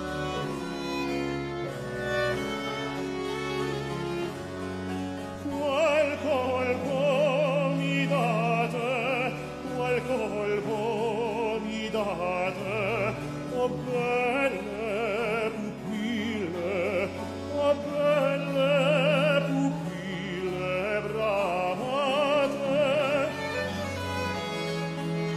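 Baroque string ensemble with continuo playing; about five seconds in, an operatic tenor enters, singing phrases with a wide vibrato over the strings.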